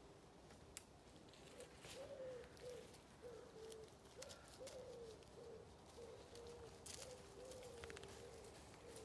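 Faint cooing of a pigeon: a series of soft, low, arched notes repeated over and over from about a second and a half in, with a few light clicks and rustles of dogs moving through undergrowth.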